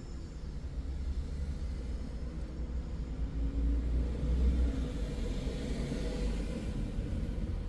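Steady low rumble heard from inside a stationary car's cabin. Traffic passing in front swells to its loudest about halfway through, with a rising hiss of tyres, then fades.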